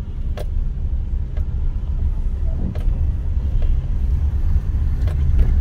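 Car cabin noise while driving on a wet, rough road: a steady low rumble of tyres and engine, with a few short sharp knocks.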